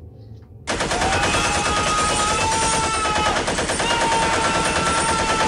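Machine-gun sound effect: continuous rapid automatic fire that starts suddenly about a second in, with a steady whine over it.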